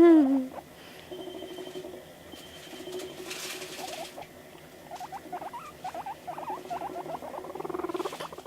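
Guinea pig vocalising: a loud rising-and-falling squeal right at the start, then a low, pulsing purr on and off, and a run of short, quick squeaks through the second half.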